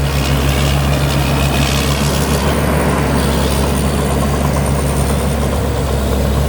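Rice combine harvester's Cummins diesel engine running steadily under working load, with the even noise of its cutting and threshing machinery.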